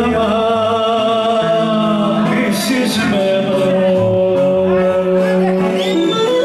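Greek folk dance music: a male voice sings long held notes over instrumental accompaniment.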